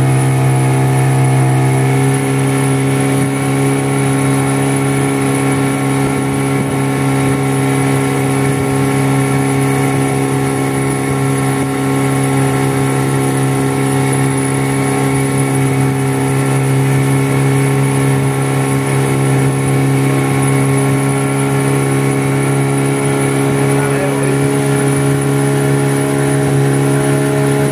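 A small river boat's motor running steadily under way: a constant, loud engine drone whose note shifts slightly about two seconds in, then holds.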